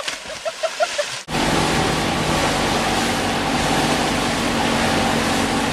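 A brief splash and a few short vocal sounds. From about a second in, a BRP outboard motor runs steadily at speed towing a tube, with wind and rushing wake water over it.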